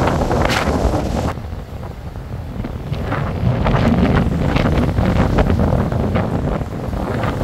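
Wind buffeting the microphone in a loud, low rumble that comes in gusts. It eases about a second and a half in, then builds again.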